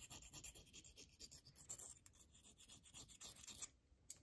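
Glass file rubbing in quick, faint back-and-forth strokes against the cut edges of a swirled metal link component, smoothing the rough stubs where its loops were snipped off. The strokes stop a little before the end.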